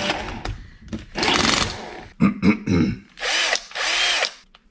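Cordless drill run free in about four short trigger bursts, the motor whining up to speed and winding down each time.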